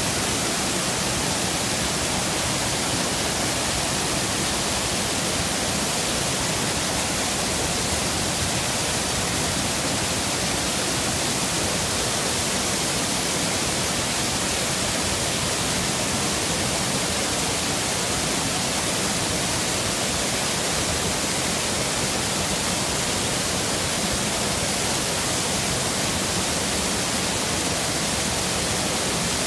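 Water pouring down a stepped stone cascade at close range: a steady, even rush of falling water with no let-up.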